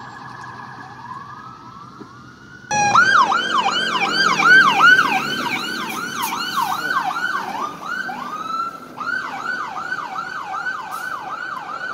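Fire engine siren. It starts as a fainter steady wail that winds upward. About three seconds in it turns into a loud, fast yelp of about three to four sweeps a second, with one longer wail sweep near nine seconds before the yelp resumes.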